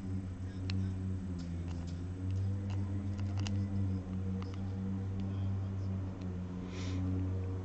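Small scattered clicks and taps of a diamond-painting pen picking up and pressing resin drills onto the canvas, over a steady low hum. A short rustle comes near the end.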